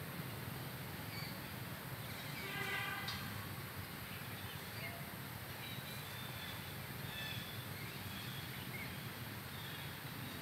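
Outdoor ambience: a steady hiss with faint, high bird chirps scattered throughout, and one short harsh call about two and a half seconds in.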